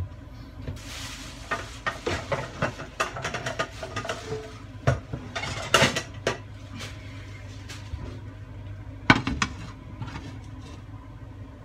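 Kitchen cookware clattering as it is handled: pans and utensils knock and scrape together in a run of irregular clicks, then a single sharp knock about nine seconds in as a nonstick frying pan is set down on the glass induction cooktop.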